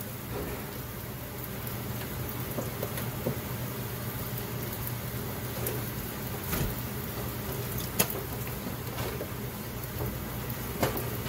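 Diced onion and bell pepper sizzling in oil on a hot greased flat-top griddle, with a few scattered pops.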